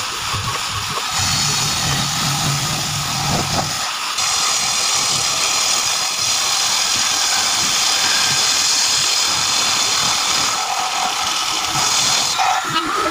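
Table saw driven by a 1 hp electric motor, running as a small log is pushed through the blade: a loud, steady whine of the blade cutting wood, turning higher and harsher about four seconds in.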